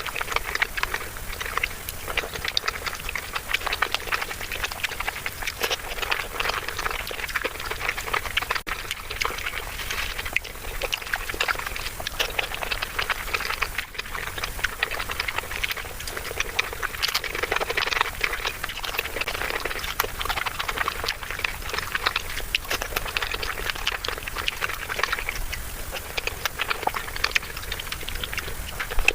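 Close-miked eating sounds: wet chewing and lip smacking of paneer in butter masala gravy, a dense continuous patter of small clicks and squelches.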